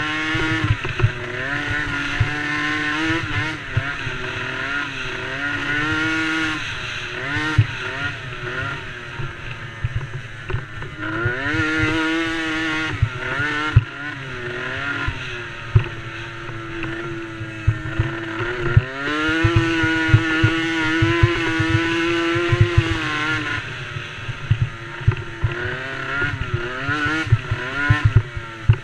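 Small youth race quad engines revving, their pitch climbing and dropping again and again as they accelerate and back off, with a few steady high-revving stretches. Frequent low thumps of buffeting hit the microphone throughout.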